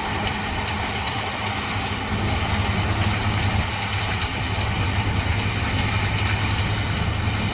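Combine harvester running as it cuts wheat, a steady engine drone with a low hum, getting a little louder about two seconds in as it comes closer.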